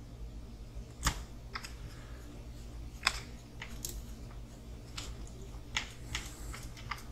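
Irregular sharp clicks and taps of small hard parts and tools being handled while assembling an RC crawler chassis, over a low steady hum.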